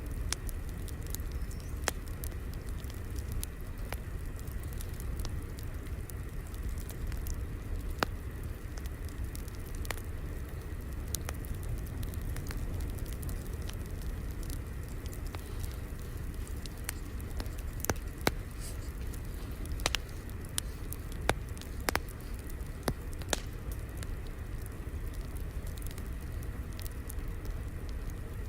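Wood fire crackling: a steady low rumble with irregular sharp pops and snaps, several of them louder in the second half.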